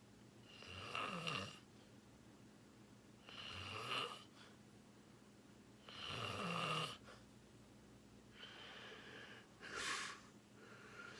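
A sleeping person snoring, a snore roughly every two and a half to three seconds, the last ones shorter.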